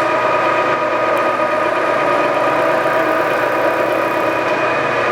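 Lagun FVA-5LA geared-head milling machine running under power, its gear drive giving a loud, steady whine of several tones at once.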